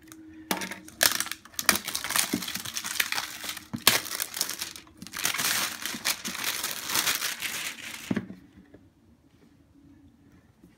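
Plastic shrink-wrap being torn and crumpled off a cardboard box, a dense crinkling rustle with a few sharp crackles that stops about eight seconds in.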